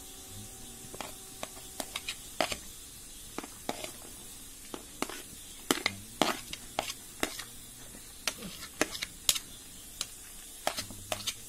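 A steel spoon scraping chopped onion off a plastic plate into a pan of diced potato frying in coconut oil: irregular sharp clicks and taps over a faint sizzle.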